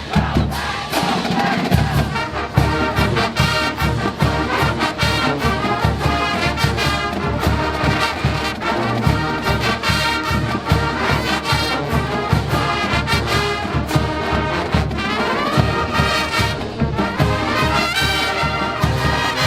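College marching band playing: a full brass section of trumpets and trombones over a drumline beating a steady, busy rhythm.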